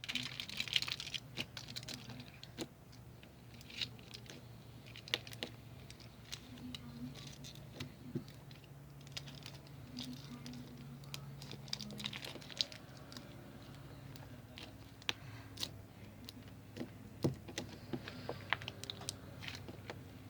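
Foil slime being squished and handled, giving irregular small sticky clicks and crackles over a faint low hum.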